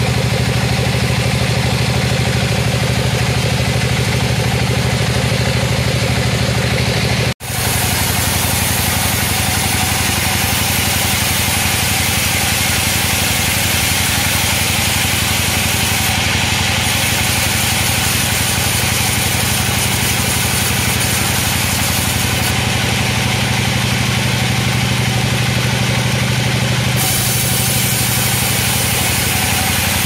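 Band sawmill running steadily, its blade sawing lengthwise through a coconut-wood cant over a continuous machine drone. The sound drops out for an instant about seven seconds in.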